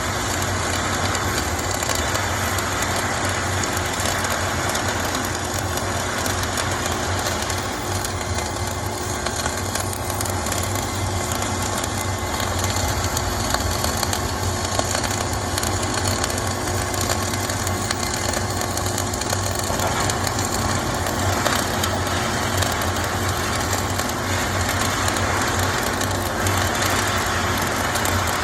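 Flux-cored arc welding: the welding arc crackling and hissing steadily and without pause, over a low hum.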